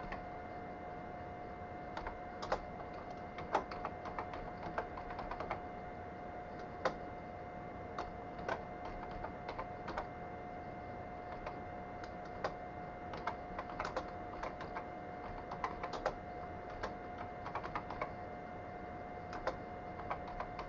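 Typing on a computer keyboard: irregular key clicks, some in quick runs, with short pauses between words. A steady faint whine runs underneath.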